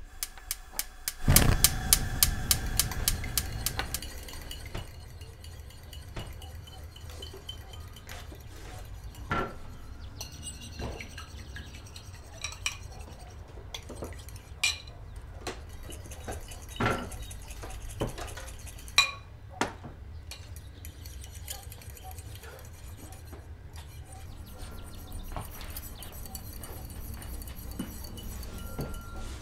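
Kitchen sounds: a loud rattling burst of rapid clicks about a second in, then dishes and utensils clinking and knocking at scattered intervals.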